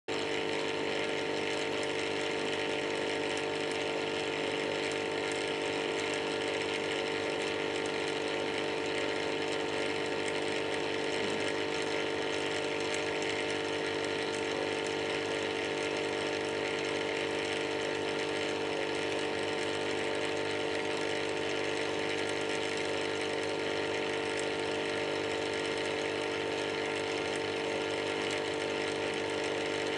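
Aquarium air pump running: a steady electric hum made of several even tones, over a constant hiss.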